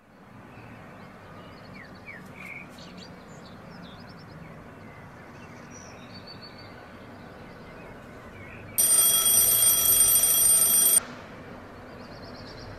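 Electronic alarm ringing with a steady high tone for about two seconds, then cut off suddenly. Before it there is quiet room tone with a few faint bird chirps.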